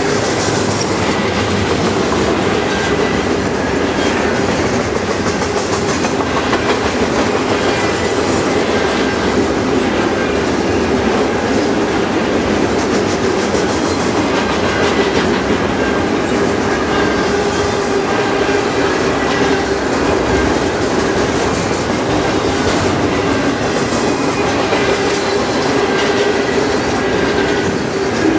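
Double-stack intermodal container train rolling past close by: a steady rush and rattle of steel wheels on the rails, with clickety-clack over rail joints and a steady humming tone underneath.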